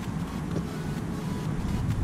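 Wind rumbling on the microphone: a steady low rumble outdoors with no distinct events.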